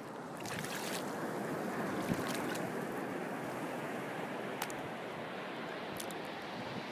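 Shallow surf washing in a thin sheet over rippled sand at the water's edge: a steady rushing wash with a few light clicks.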